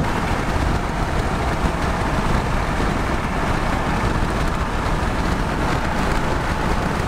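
Steady road and wind noise of a vehicle moving at highway speed, heard from inside the cabin: an even rushing hum that does not change.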